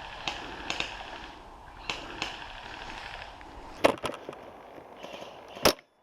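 Airsoft gunfire: a few faint, sharp pops, then two loud, sharp cracks, one about four seconds in and one near the end.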